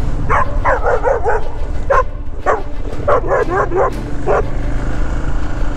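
Dog barking rapidly at a motorcycle, about a dozen sharp barks in quick runs that stop a little past halfway, over the steady low running of a Royal Enfield Himalayan's single-cylinder engine.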